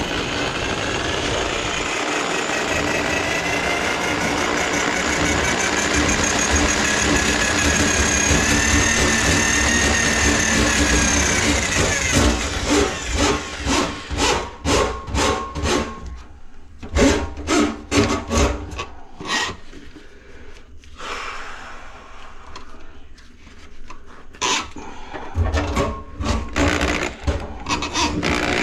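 Motorised drain-cleaning machine working a grease-clogged kitchen drain line. The motor runs steadily for about twelve seconds with a whine that wavers in pitch. It then runs in short pulses about twice a second, and after that in irregular on-off bursts with clicks.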